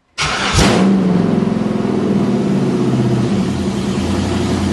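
GM 5.3-litre LS V8 running through open headers, loud. It starts abruptly, its revs rise briefly about half a second in, then it runs steadily.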